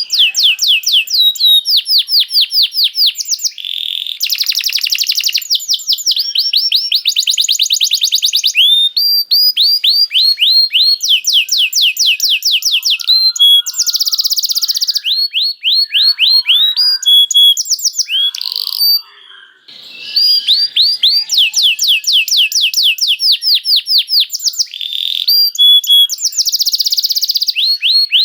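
Domestic canary singing in fast rolling trills: phrase after phrase of rapidly repeated high sweeping notes, with one brief pause about two-thirds of the way through.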